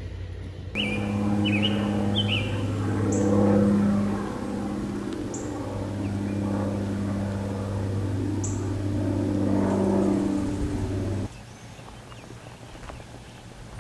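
A diesel locomotive engine runs with a steady low drone while birds chirp over it. The drone cuts off suddenly near the end, leaving quieter outdoor sound.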